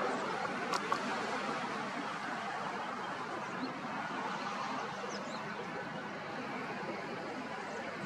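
Steady outdoor background noise with two faint clicks about a second in and a few faint, short high chirps later on.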